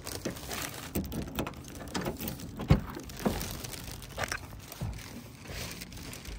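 Plastic shopping bag of groceries rustling and crinkling as it is carried, with irregular knocks and clicks, the sharpest about two and a half seconds in.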